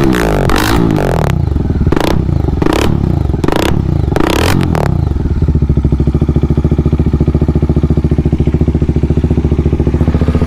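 Bajaj Dominar 400's single-cylinder engine revved through its exhaust in a series of quick throttle blips, then settling about halfway through into a steady, evenly pulsing idle.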